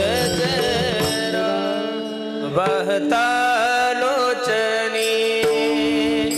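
Marathi devotional kirtan singing: a voice sings ornamented, bending lines over steady held harmonium notes.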